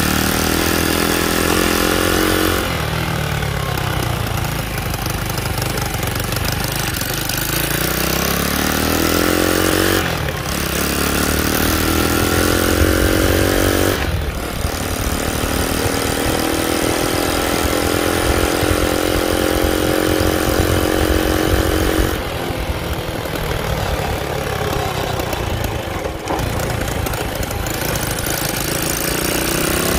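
Piranha 140cc single-cylinder four-stroke engine in a Honda CT90 running under way. Its pitch climbs as the bike accelerates, dips briefly at gear changes about 10 and 14 seconds in, then holds steady.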